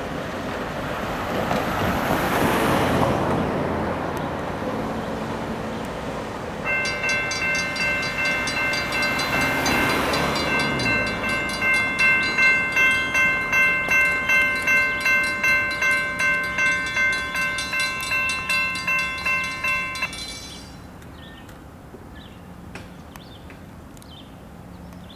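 Railroad grade-crossing warning bell ringing rapidly in a steady pulsing pattern, starting about seven seconds in and cutting off suddenly near twenty seconds. Before it, a broad rushing noise swells and fades.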